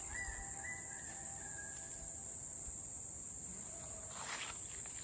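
Steady high-pitched drone of insects. A few short whistled notes come in the first two seconds, and there is a brief rustle about four seconds in.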